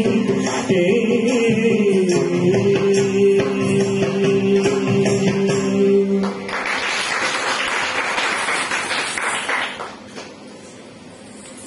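A song ends on a long held sung note over steady accompaniment. About six seconds in the music stops and applause follows for about three seconds, then dies down to quiet room noise.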